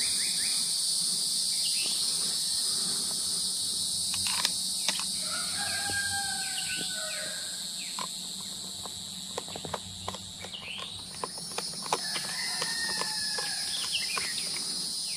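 Steady high-pitched drone of insects, with a bird calling twice, and faint clicks of a screwdriver turning a screw in the rifle's metal.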